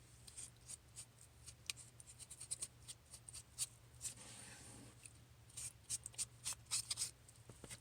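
Board eraser rubbing and scrubbing across a wet mesh stencil transfer to wash off chalk paste: faint, irregular scratchy strokes with a soft wet swish about four seconds in.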